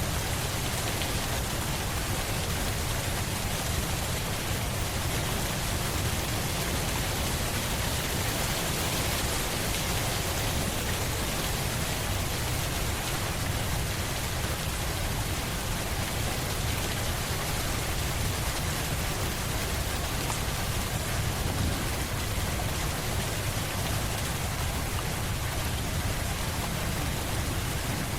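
Steady heavy rain falling on surfaces, an even dense hiss with a deep low rumble underneath.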